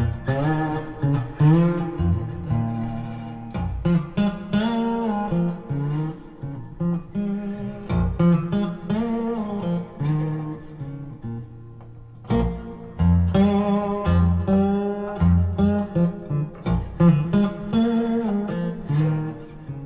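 Acoustic blues guitar instrumental, plucked notes with many bends and slides in pitch, played back through a Mark Audio Alpair full-range driver in a back-loaded horn speaker.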